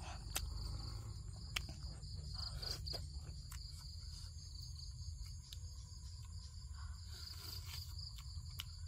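Crickets and other insects trilling at a high, steady pitch that swells and fades at times, over a low steady rumble, with scattered small sharp clicks.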